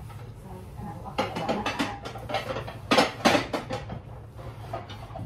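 Plates and other kitchenware clattering and clinking as they are handled and stacked, in two bursts of clinks about a second in and again around three seconds in, over a steady low hum.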